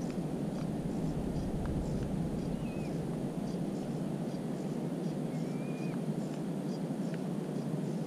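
A steady low rushing background noise, heavier in the deep rumble for the first few seconds. Over it come two faint short bird whistles that rise and then fall, and a few faint ticks.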